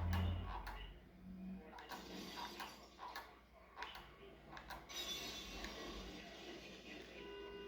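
Scattered clicks and knocks, with a low thump at the start. About half a second before the end, a car horn starts sounding one steady note.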